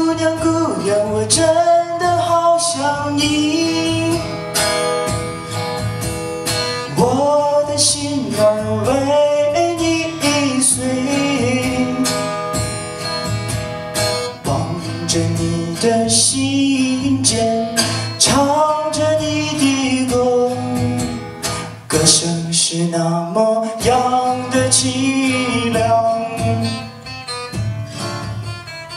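A man sings a song not in English while strumming an acoustic guitar, the voice carrying the melody in long phrases over steady chords.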